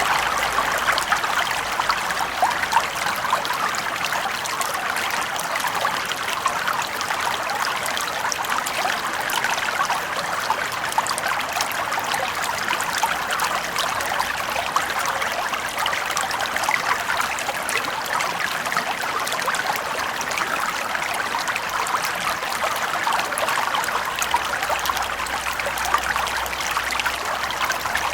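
Small brook flowing steadily, with trickling and rippling water over stones.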